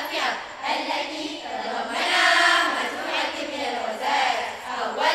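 A girls' choir chanting verse together in musammarah style, the melodic phrases rising and falling, swelling loudest about two seconds in.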